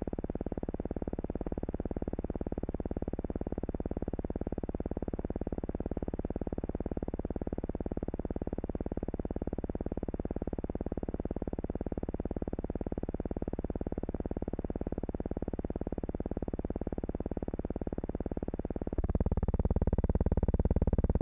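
A steady, buzzing hum with a rapid rasp and no speech, which grows louder and rougher about nineteen seconds in.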